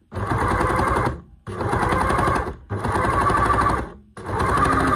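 Overlocker (serger) running in four short bursts of about a second each, with brief pauses between them, stitching and trimming the fabric edge with its cutting knife while the fabric is guided around a curve.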